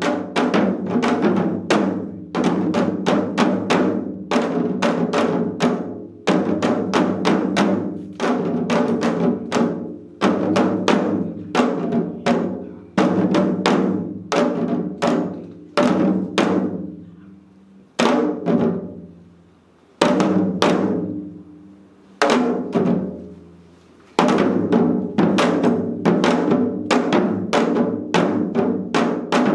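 Several janggu, Korean hourglass drums, played together in seoljanggu: rapid strokes of stick and mallet on the two drumheads. Past the middle the playing thins to single strokes about two seconds apart, each left to ring out, then picks up into fast playing again near the end.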